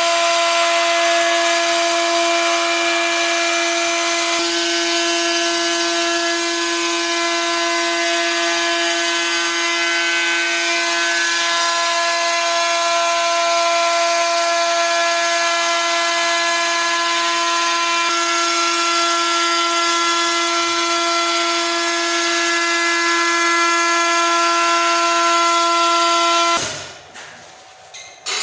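CNC router spindle running at high speed with a steady high-pitched whine over a hiss. The pitch pattern shifts slightly about four seconds in, and the whine cuts off abruptly near the end, followed by a few knocks and creaks.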